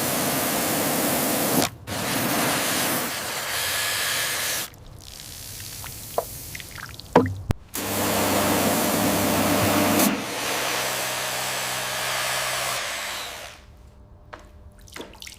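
A series of short, abruptly cut clips of loud hissing spray or air blast, with a few sharp clicks in a quieter stretch and a steady motor hum under one of the later clips.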